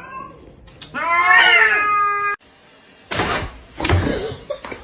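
A cat meowing: a short meow, then a long, drawn-out meow that cuts off suddenly, followed by two brief noisy bursts.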